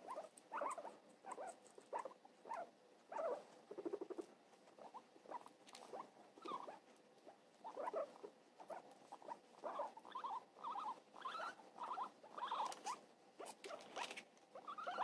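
Guinea pigs making short, repeated squeaky calls, a few each second, coming more thickly in the last few seconds, with scattered small clicks.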